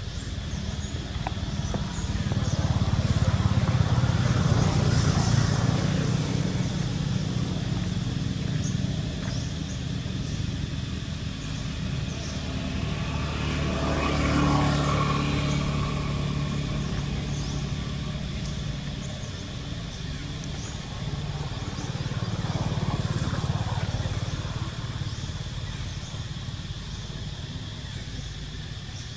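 Motor vehicles passing by, their engine and road noise swelling and fading away three times, over a steady high-pitched whine.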